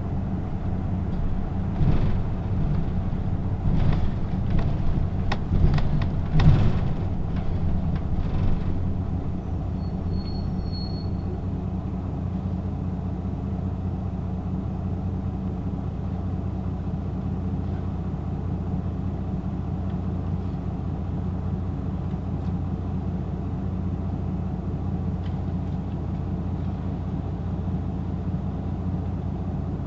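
Hino diesel city bus heard from inside, its engine idling with a steady hum. A few knocks and clunks come in the first several seconds, and a short high beep about ten seconds in.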